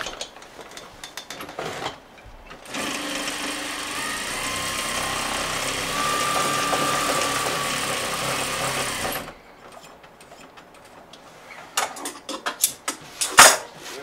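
Sewing machine stitching a seam through fabric and muslin in one steady run of about six seconds, starting about three seconds in and picking up speed slightly partway through. Scattered clicks and knocks come before and after the run.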